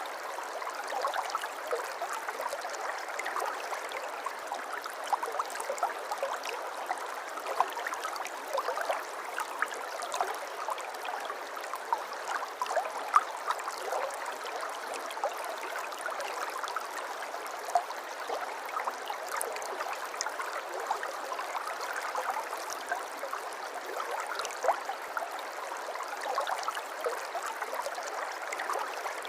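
River water flowing steadily, a continuous rushing babble dotted with many small splashes and gurgles.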